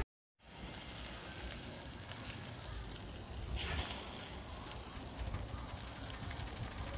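Chicken leg quarters sizzling on a wire grill over glowing charcoal in a coal pot, with small crackles from the coals and a brief louder hiss about three and a half seconds in.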